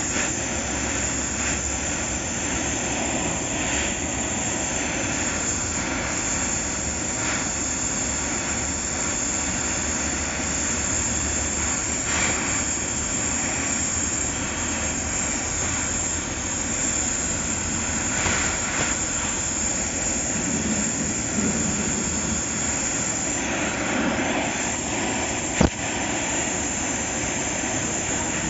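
Gas welding torch flame hissing steadily at a metal joint, with a few brief swells and one sharp click near the end.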